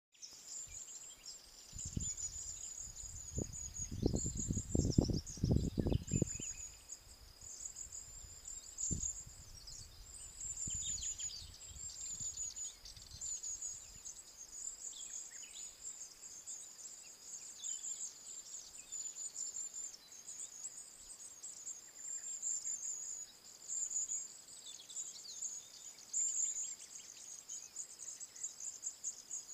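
Insects chirping in a continuous, high-pitched, rapidly pulsing chorus. About two to six seconds in, and once more near nine seconds, low rumbling thumps cover it; these are the loudest sounds here.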